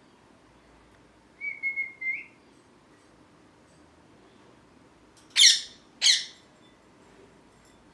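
Ringneck parrot vocalising: a short, thin whistle held on one note, rising slightly at its end. About three seconds later come two loud, harsh squawks, well under a second apart.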